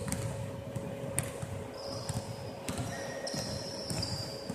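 Basketballs bouncing on a hardwood court, a few separate irregular thuds that ring in a large hall.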